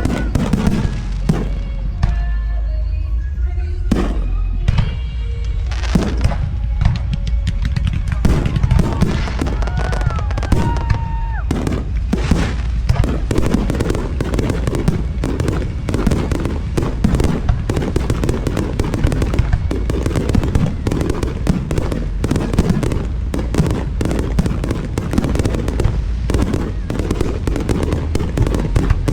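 Aerial fireworks display: separate bangs for the first few seconds, then from about twelve seconds in a dense, continuous barrage of rapid bursts and crackling.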